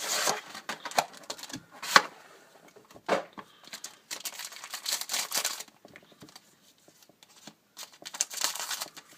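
Hockey card packaging being torn open and handled: irregular tearing and crinkling of wrapper or shrink-wrap, with sharp clicks and taps, in several short bursts.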